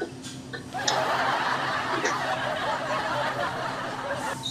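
A man stifling laughter: a long, breathy, held-in snicker lasting about three seconds, over a low steady hum.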